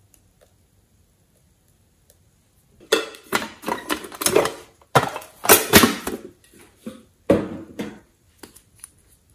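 A cat-shaped tin case being handled, giving a run of sharp clattering clicks and knocks that starts about three seconds in and fades out near the end.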